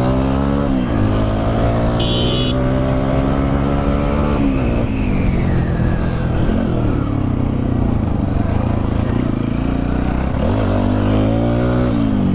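TVS Apache RTR 160 4V's single-cylinder four-stroke engine running under way on rough ground, its pitch climbing as the throttle is opened and dropping back about a second in, about four and a half seconds in, and again near the end. A brief high-pitched sound about two seconds in.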